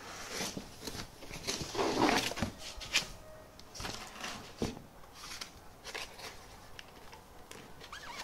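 Unpacking noise: rustling of packing material and cardboard with scattered knocks and clicks as parts are handled, the loudest rustle about two seconds in and a sharp knock about a second later.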